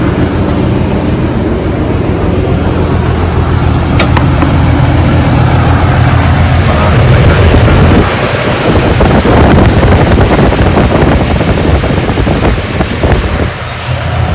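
Jeep Liberty's V6 engine idling steadily while its misfire is being traced cylinder by cylinder, with a single light click about four seconds in.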